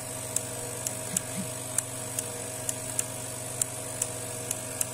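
Videojet 1510 inkjet printer running its automatic flush cycle: a steady machine hum with sharp clicks about every half second as its solenoid valves open and close to flush ink from the print head and nozzle.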